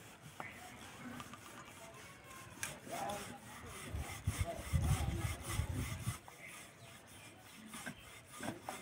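Wooden rolling pin rolling out a round of dough on a floured stone board: repeated back-and-forth rubbing strokes, heavier for about a second near the middle.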